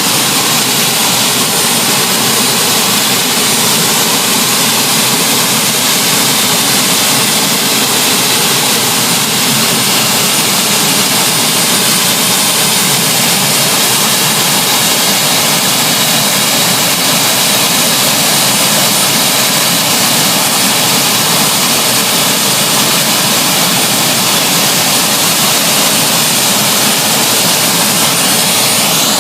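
Gas-turbine engines of the Whispering Giant pulling tractor running steadily while warming up: a loud, unchanging jet-like rush with a thin high whine held over it.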